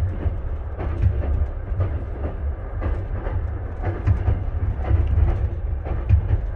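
Moving passenger train heard from inside a sleeper compartment: a steady low rumble from the carriage running on the track, with frequent short knocks and rattles.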